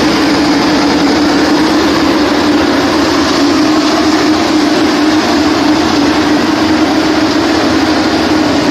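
Electric-motor concrete mixer pump running steadily: a loud, constant machine noise with a steady hum underneath.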